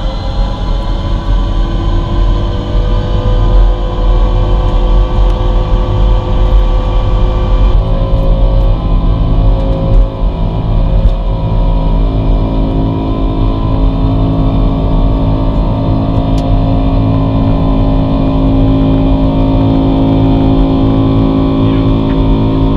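Boeing 747 jet engines running loud just after touchdown on landing: a deep rumble with several steady whining tones above it. The sound changes abruptly about eight seconds in, as the higher whine drops away.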